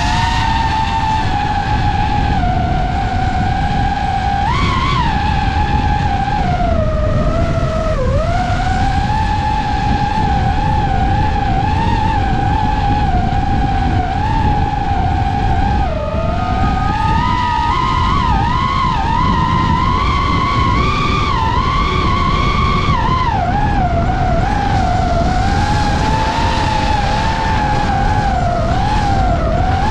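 DJI FPV drone's motors and propellers whining in flight, the pitch swooping up and down with throttle changes, highest for several seconds past the middle. A steady low rush of propeller wash and wind runs underneath.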